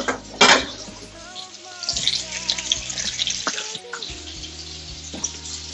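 Strip loin steaks frying in hot butter and oil in a pan, sizzling and crackling. Two sharp knocks sound at the start and about half a second in.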